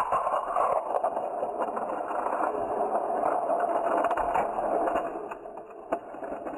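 Battery-powered toy train motor and plastic gears whirring steadily with a light rattle, easing somewhat near the end, with a single click shortly before it ends.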